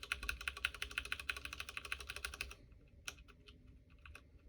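Cherry MX Brown mechanical keyboard switches being pressed in a sound test of a spray-lubed switch against an unlubed one. The keys are pressed in a fast run of clicks for about two and a half seconds, followed by a few single keystrokes.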